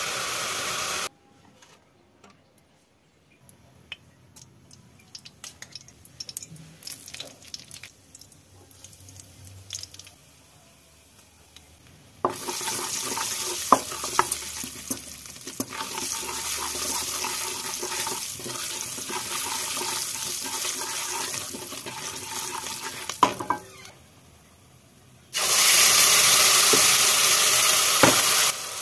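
Hot oil sizzling in a kadai while a wooden spatula stirs and scrapes, after a quieter stretch of light clinks and taps; the sizzle is loudest near the end as the ground tomato-onion puree goes into the hot oil.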